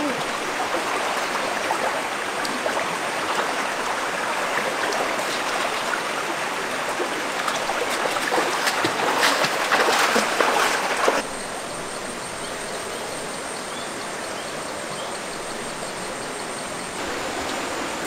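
Shallow rocky stream flowing, a steady rush of water, with a few louder splashes between about eight and eleven seconds in. The water sound turns quieter about eleven seconds in.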